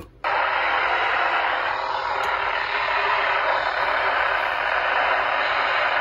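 American Red Cross weather radio's speaker cuts out for a moment as the channel is switched, then hisses with steady static: no broadcast is coming through on that channel.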